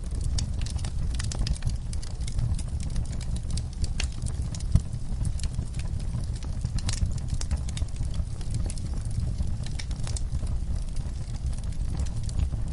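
Fire in a fireplace crackling, with irregular sharp pops and snaps over a low steady rumble; one pop about five seconds in is louder than the rest.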